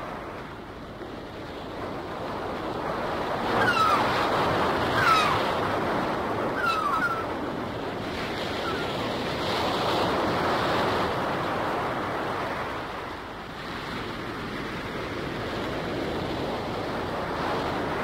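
Surf washing steadily on a shore, swelling and easing, with a gull giving a few short calls that fall in pitch between about four and seven seconds in.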